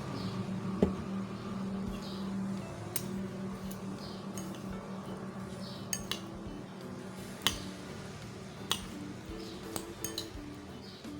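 Eating utensils clinking against dishware during a meal, with about nine short, sharp clinks spaced irregularly.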